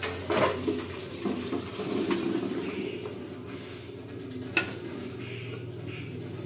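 Steel pressure-cooker pot and steel colander clinking and knocking as boiled chickpeas and potatoes are tipped out, the cooking water draining through. A single sharp metal clink about four and a half seconds in is the loudest sound.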